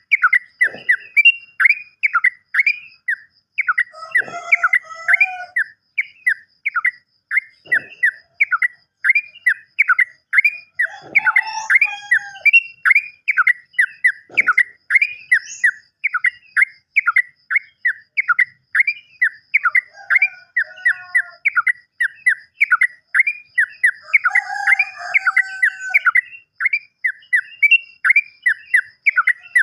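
Yellow-vented bulbul (trucukan) song: a long unbroken run of short, quickly falling notes, about two to three a second. Lower chattering calls come in now and then, about four times.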